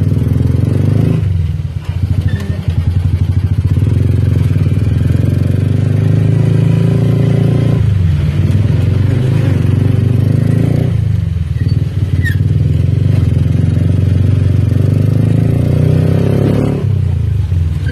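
Motorcycle engine running as it rides along, heard from on board: a steady low rumble that eases briefly a few times.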